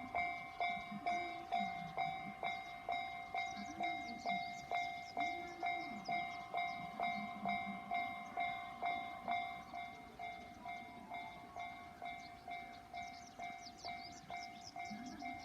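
Japanese railway level-crossing warning bell ringing in a steady, even ding about twice a second, signalling that a train is approaching. Low rising-and-falling tones recur several times beneath it, and high chirps sound near the end.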